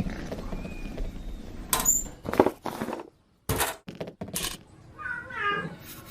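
Cartoon sound effects: a run of sharp knocks and thuds, then a short high squeal that falls in pitch about five seconds in.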